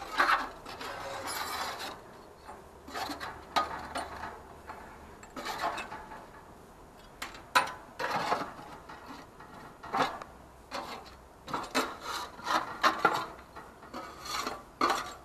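Irregular scraping and rubbing in short bursts, with a few sharp knocks among them.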